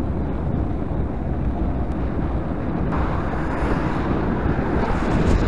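Wind buffeting a bike-mounted camera's microphone while riding along a road: a steady, heavy rumble that turns brighter and a little louder about three seconds in.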